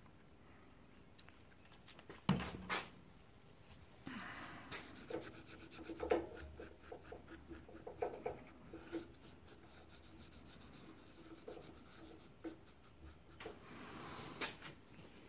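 Cloth rubbing grease off the inner race, cage and balls of a CV joint, in quick scrubbing strokes, with a small knock against the metal about two seconds in.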